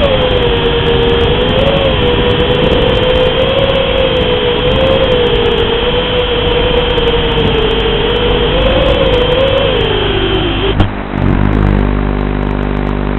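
FPV racing quadcopter's Cobra 2204 2300kv motors spinning Dalprop 5040 three-blade props: a loud buzzing whine that wavers up and down with the throttle. Near the end the pitch sinks, a sharp knock sounds as the motors cut out on touchdown, and a low steady hum is left.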